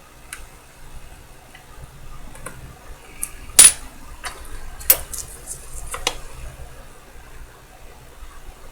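Irregular small metallic clicks and taps of watchmaker's tools handling parts of a Poljot 3017 chronograph movement while fitting the reset hammer, with the sharpest click a little past three and a half seconds in.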